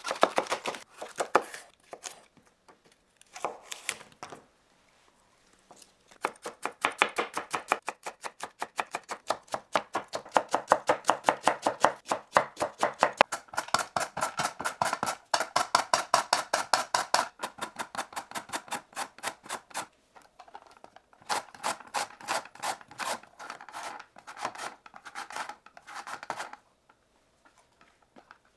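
Kitchen knife chopping food on a cutting board in runs of quick, even strokes, several a second. The runs are broken by short pauses, and the chopping stops shortly before the end.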